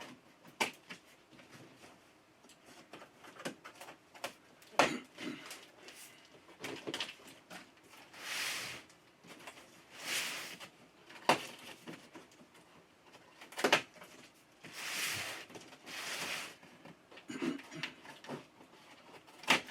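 Cardboard packaging being handled during an unboxing: several second-long scraping, sliding sounds of cardboard and packing material, with a few sharp knocks as pieces are set down.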